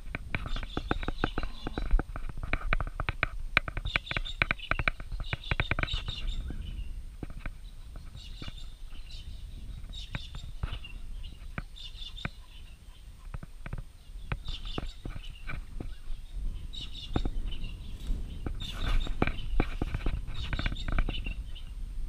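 Crackling, rustling footsteps through grass and dry twigs at a walking pace, busiest early on and again near the end, over a steady low wind rumble on the microphone.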